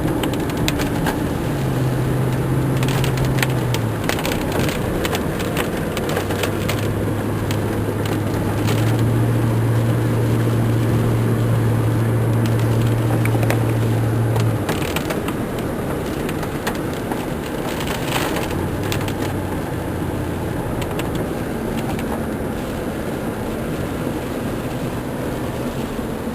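A car driving along a road: a steady low engine hum that shifts pitch a few times, with road noise and scattered clicks and knocks.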